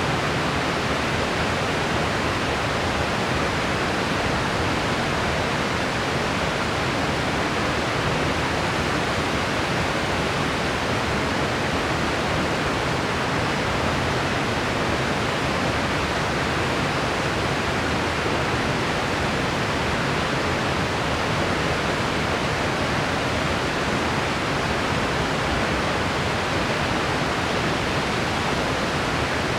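Steady white-noise hiss, even and unchanging, spread from deep to high pitches with no separate events.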